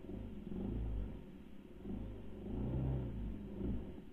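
Racal MC 125 dirt bike engine running, its revs rising and falling in a few swells as the bike is ridden.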